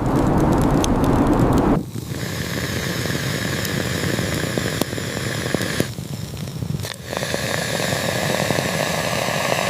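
A campfire crackling and hissing, with scattered sharp pops. About two seconds in the sound changes to a thinner, steady hiss.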